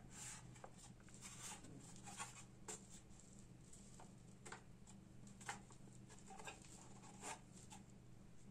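Faint rustling and light irregular clicks of hands turning a graphics card over, fingers and palms against its plastic blower shroud and circuit board, over a low steady electrical hum.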